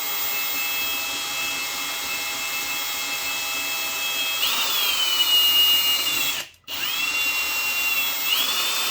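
Electric hand drill running, boring a hole with a twist bit, with a steady motor whine. The whine rises in pitch about four and a half seconds in. The drill stops for a moment about six and a half seconds in, then starts again and rises once more near the end.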